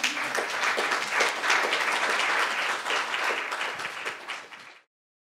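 Lecture audience applauding, many hands clapping together; the applause cuts off suddenly near the end.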